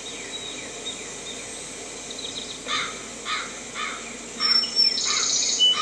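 Countryside daytime ambience sound effect: a faint steady outdoor background with a bird calling over and over from about two seconds in, roughly twice a second, and high-pitched bird chirping joining near the end.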